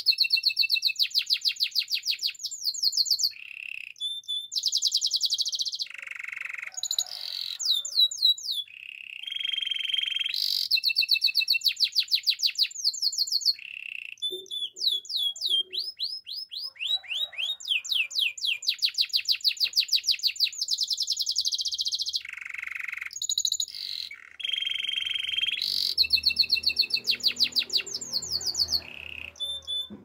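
White canary singing a long song of rapid trills: fast runs of repeated high notes, lower buzzy rolls and quick sweeping notes, in phrases broken by brief pauses.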